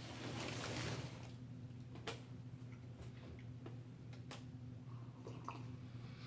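Faint sounds of someone eating a sub sandwich: a breathy rush of air in the first second, then scattered mouth clicks and smacks from chewing.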